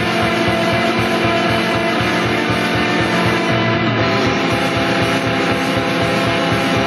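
Loud background rock music with guitar and a steady beat.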